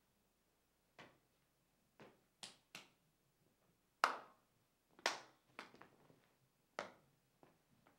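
A dancer's sharp stamps and slaps on a stage floor, about a dozen at irregular spacing, the strongest about four seconds in and just after five seconds.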